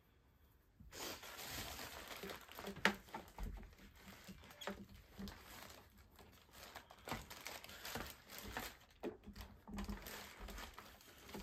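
Handling noise from a Magical Butter machine and its power cord: steady rustling with scattered sharp clicks and knocks, starting about a second in.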